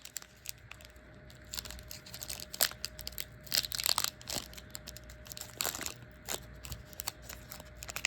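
A 2025 Panini Donruss WNBA trading-card pack wrapper being torn open and crinkled by hand, in irregular crackles that are loudest around the middle.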